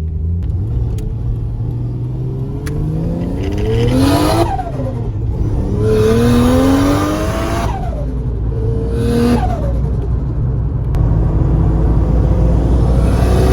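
Turbocharged Nissan RB25 straight-six in an R33 Skyline pulling up through the revs several times, the pitch rising and then dropping on lift-off. Each pull peaks in a loud hissing rush of turbo air. The engine has a bit of a flat spot under acceleration.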